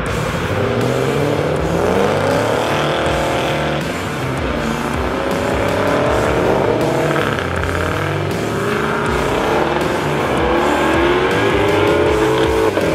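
Shelby Mustang V8 engines revving up as the cars accelerate away one after another, the engine note climbing in pitch three or four times.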